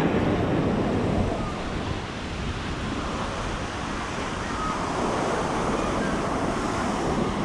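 Ocean surf breaking and washing on a sandy beach, swelling and easing, with wind rumbling on the microphone.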